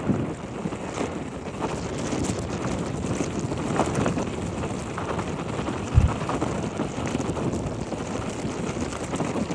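Nissan Juke driving, with steady road and wind noise and one dull, low knock about six seconds in: the kind of knock the owner traces to the brake calipers once the car has warmed up.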